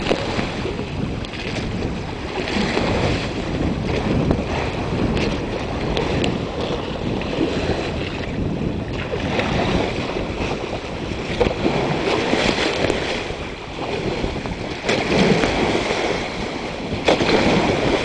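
Choppy sea water rushing and splashing against a paraw sailboat's outrigger and hull as it sails, with spray and wind buffeting the microphone. The rushing comes in uneven surges, with a few louder splashes near the end.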